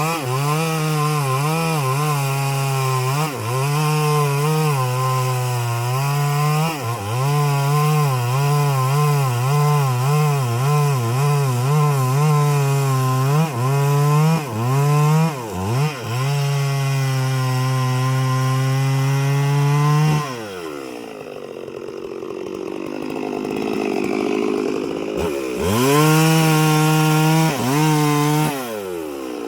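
Chainsaw cutting through a big tree, its engine pitch wavering up and down as the chain loads in the cut. About twenty seconds in it drops to idle, then revs up again a few seconds later and drops back near the end.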